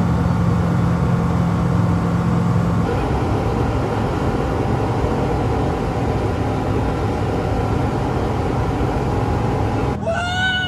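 Microlight aircraft's propeller engine droning steadily, heard inside the cockpit, its tone shifting about three seconds in. Near the end a short rising-and-falling voice sound, like a whoop, cuts across it.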